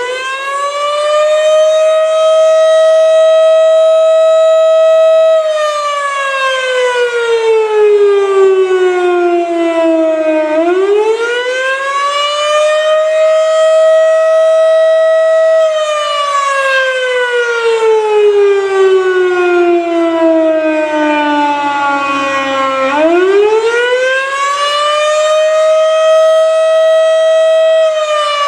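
Federal Signal Model 5B fire siren sounding its weekly test in a wail. It winds up to full pitch, holds a few seconds, glides down partway and winds back up again, three cycles in all.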